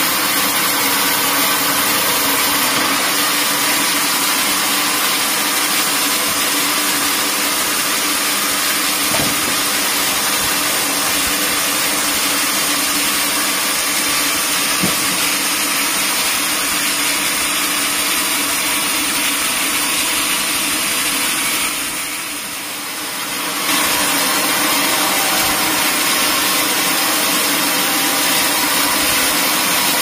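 Log band saw running and cutting through a teak log, giving a loud, steady hissing, whirring noise. About two-thirds of the way through, the level drops for a couple of seconds, then comes back.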